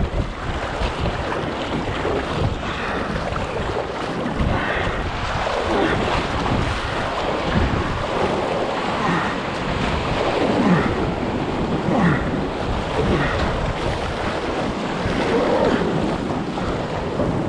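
Sea surf surging and washing around rocks and a kayak, with splashing from paddle strokes and wind buffeting the microphone.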